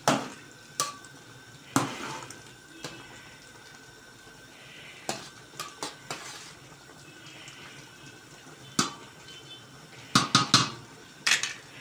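A spoon stirring chunks of eggplant in tomato sauce in a large metal pot, knocking and scraping against the pot's rim and sides in scattered strokes, with a quick run of knocks near the end.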